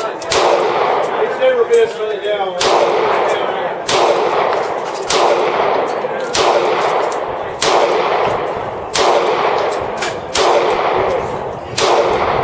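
Gunfire on an outdoor shooting range: about ten heavy shots at a steady pace, one every second and a quarter or so, each followed by a long rolling echo, with fainter shots from other guns in between.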